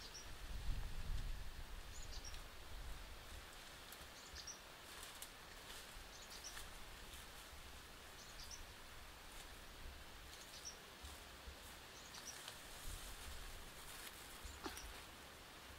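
A bird repeating a short, high call about every two seconds over faint outdoor background noise, with light rustling of grass near the end.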